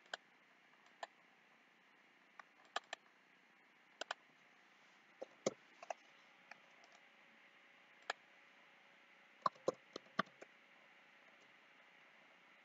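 Computer mouse buttons clicking at irregular intervals, single clicks and quick double clicks, over a faint steady hiss.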